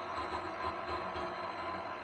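Table saw running, its blade raised only about 1 mm and skimming the high spots off the face of a warped board slid across it in a jig.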